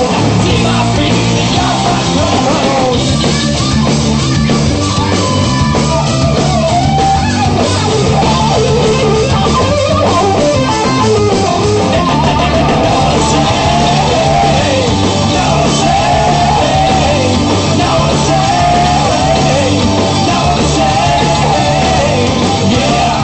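A rock band playing loud, with electric guitar and a drum kit under a melody line.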